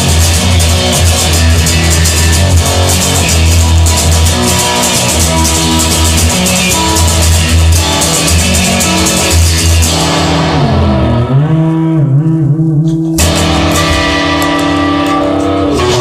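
Rock music with electric guitar, bass and drums, and no singing. About ten seconds in the highs fall away and the pitch dips and slides back up. The full band comes back in about three seconds later.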